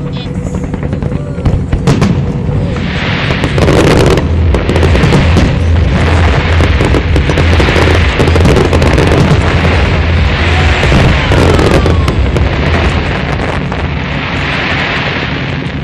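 Aerial fireworks going off in a rapid run: many sharp bangs of bursting shells, with patches of crackling glitter swelling and fading about six times. The volley is loudest through the middle and eases off near the end.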